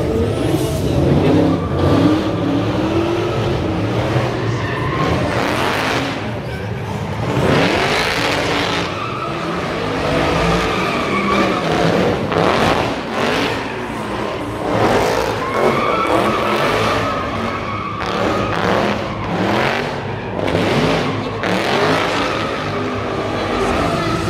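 Drift car's engine revving up and down over and over, with repeated surges of tyre squeal as it slides.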